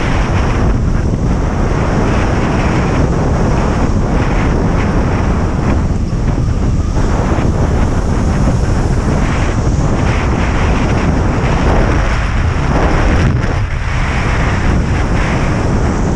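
Loud, steady wind buffeting the microphone of a camera carried by a kite landboarder riding in 10–15 knot wind.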